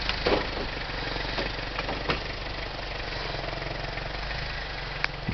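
Lifted 4x4 pickup truck's engine running steadily at low revs as the truck crawls over rough ground, with a few short sharp knocks.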